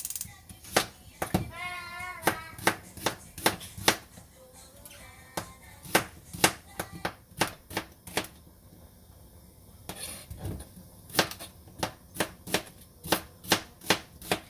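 Kitchen knife chopping an onion on a cutting board: sharp taps of the blade on the board, about two or three a second, with short pauses between runs.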